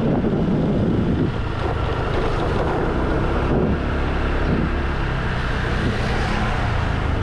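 Honda SH 150 scooter's single-cylinder four-stroke engine running steadily while riding along a street, with wind buffeting the microphone.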